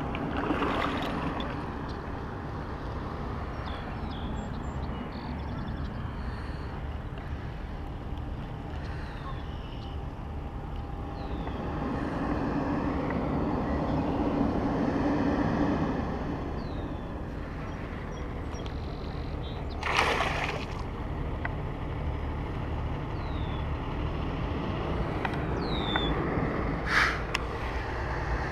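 Outdoor ambience: a steady low rumble of wind and distant traffic. A few short high chirps and two brief noisy bursts, one about two-thirds through and one near the end, sound over it.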